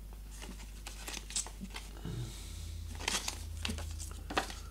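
Paper leaflets being handled and unfolded: a string of short, crisp rustles and crinkles.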